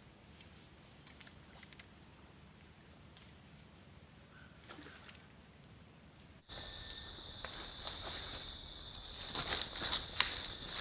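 Steady high-pitched insect drone in the rice field, which switches abruptly to a lower-pitched drone about six and a half seconds in, with scattered clicks and rustles after the change.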